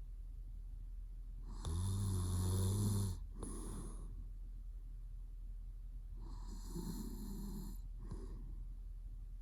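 A man snoring in his sleep: a loud, low-pitched snore about two seconds in lasting over a second, then a softer snore about six seconds in, each followed by a short breath.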